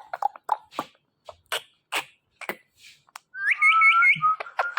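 Pet parrot making short clicks and chirps, then a loud whistle about three and a half seconds in: a rising note with a quick wavering trill above it.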